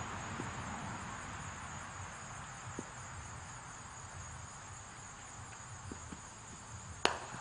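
Steady high drone of summer insects over a low outdoor hiss, then about seven seconds in a single sharp crack as the bowled cricket ball is struck by the bat.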